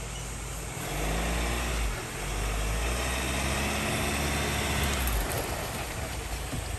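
Ford Ranger FX4 Max pickup's engine working harder for about four seconds, with a short let-off about two seconds in, then easing back to a lower, steady run.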